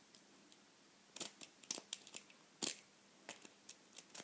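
Steel lock-picking tools clicking and scraping in the keyway of a Yale 841 five-pin padlock: a run of irregular sharp metallic clicks that starts about a second in, the loudest a little past halfway.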